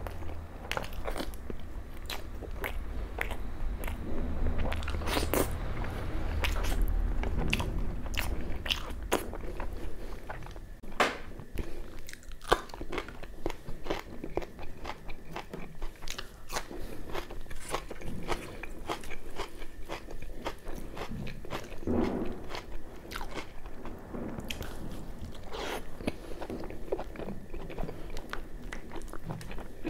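A person eating puri soaked in mutton curry: chewing and biting, with many short, irregular wet smacks and crunches.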